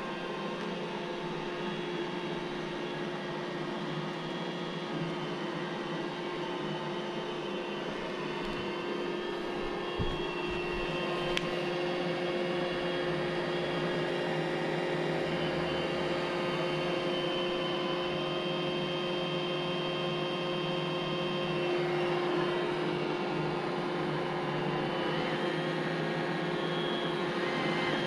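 iRobot Roomba j7 robot vacuum running: a steady motor hum and whir with a constant tone. Two light knocks come about ten and eleven seconds in.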